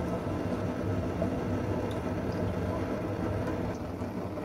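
Cumin seeds frying in hot oil in an aluminium pot: a steady sizzle as the seeds brown, stirred with a wooden spatula.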